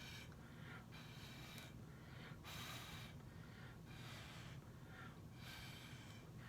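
Faint, repeated short puffs of breath, about one or two a second, blowing wet acrylic paint across a Dutch-pour canvas.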